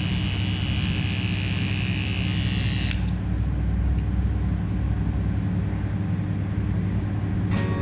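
Cordless dog clipper running steadily while shaving matted fur from a paw: a low motor hum with a high, hissy cutting sound that stops abruptly about three seconds in, leaving only the hum.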